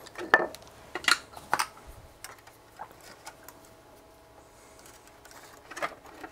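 Scattered sharp clicks and light knocks from handling a radio's circuit board and plastic chassis on a workbench: a few in the first two seconds, then a small cluster near the end as a soldering iron is picked up.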